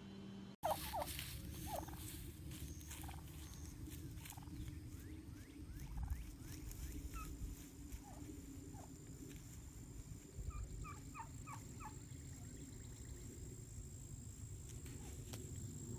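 Wild turkeys calling faintly: scattered short falling yelps and clucks, with a quick run of several notes a little past the middle.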